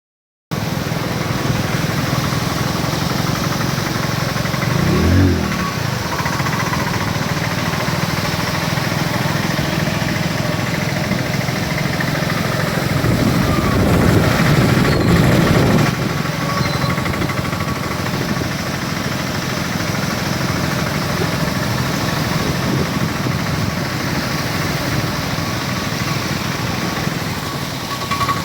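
Car driving: steady engine and road noise, with a short rising-and-falling tone about five seconds in and a louder swell from about thirteen to sixteen seconds.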